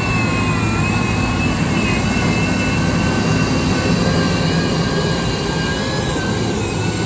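Motor grader's diesel engine running steadily, a heavy rumble with a wavering high whine over it.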